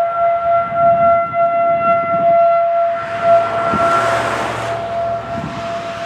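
Federal Signal 2001-SRN single-tone warning siren sounding a steady alert tone of about 680 Hz, heard from about half a mile away as its horn slowly rotates. A rush of noise swells and fades about three to five seconds in.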